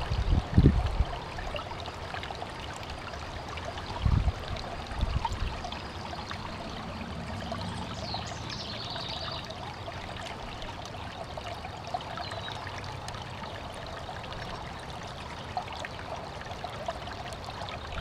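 Shallow mountain stream running over rocks, a steady rush of water, with brief low rumbles near the start and about four seconds in.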